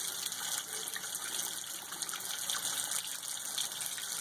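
Tap water running steadily over hands lathering a bar of soap.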